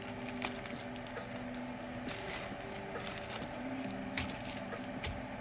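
Faint, sparse clicks and light clinks of a necklace and beads being handled, over a faint steady hum.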